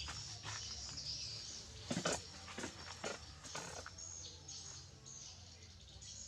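High-pitched animal chirps and squeaks, with a few sharp knocks in between, the loudest about two seconds in.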